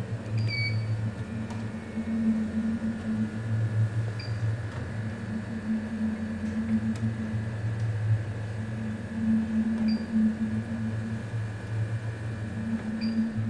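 Steady low machine hum from lab equipment, swelling and fading every couple of seconds, with a few short high beeps about four times.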